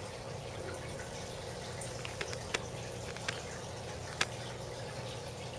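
Aquarium water trickling over a steady low hum, with a few short sharp clicks in the middle.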